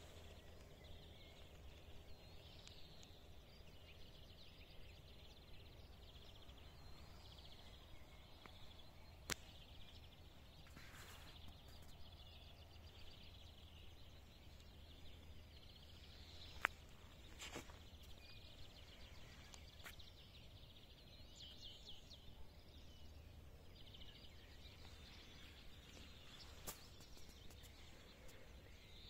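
Faint songbirds chirping in the distance over a low, steady background rumble, broken by a few sharp clicks, the loudest about two-thirds of the way through.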